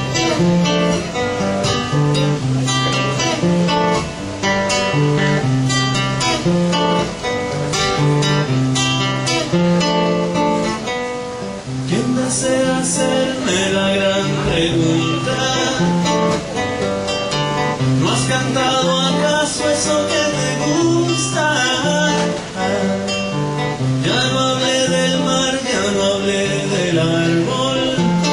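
Two acoustic guitars playing a Peruvian trova song live, a run of plucked notes over chords.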